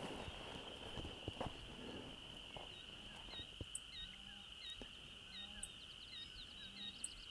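Faint, distant gobbling of Merriam's turkeys more than a mile away, at the edge of hearing. It comes over a steady high-pitched hum and small chirps repeating about twice a second.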